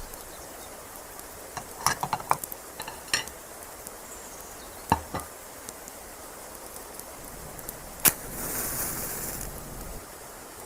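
A scattering of sharp clicks and knocks, with one loud sharp click about eight seconds in followed by about a second of hissing, over a faint steady outdoor ambience.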